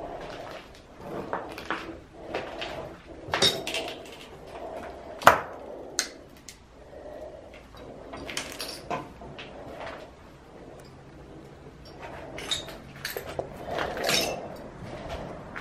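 Irregular knocks and clicks of objects being handled in a small room, the sharpest about five seconds in.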